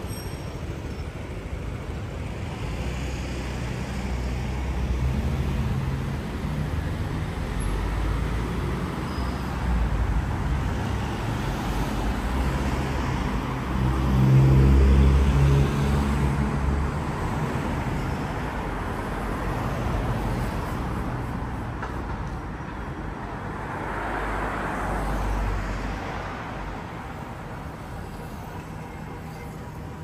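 Road traffic going past: engines and tyre noise swell and fade as vehicles pass. The loudest vehicle passes about halfway through, and another passes later on.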